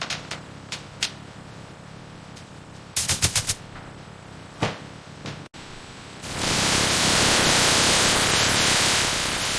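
Factory machinery noise: a few sharp clicks and a quick run of about five rapid clicks, then a loud steady hiss that starts about six seconds in.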